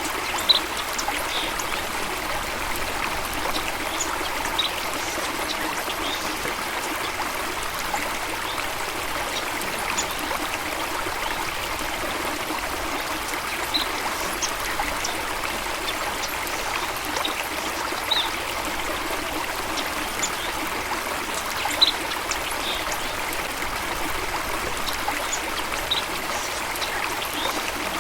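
Running water in a steady, even babble, with short, sharp splashes or plinks standing out every few seconds.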